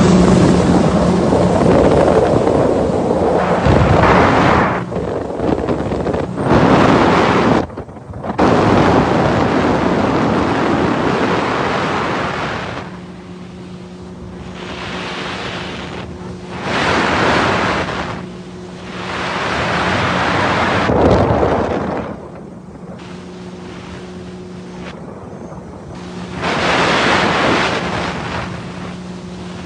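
Jet ski engine running with a steady hum, nearly buried under loud wind on the microphone and rushing water that swell and fade in surges every few seconds.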